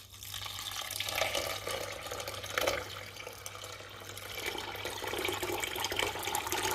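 Water pouring steadily into a cooking pot of soaked red lentils.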